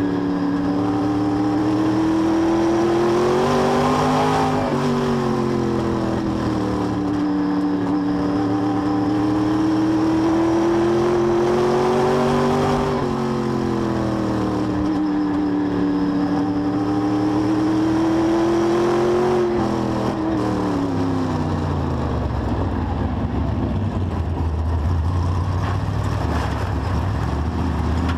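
Race car engine heard from inside the cockpit at racing speed, its pitch climbing and dipping several times as the throttle is worked. About twenty seconds in the pitch falls away and the engine settles to a low, steady run as the car slows.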